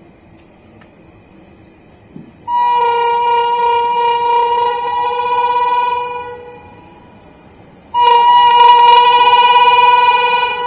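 Horn of an approaching Indian Railways train locomotive, sounded in two long steady blasts. The first starts about two and a half seconds in and lasts around three and a half seconds. The second starts about two seconds after it ends and fades out near the end.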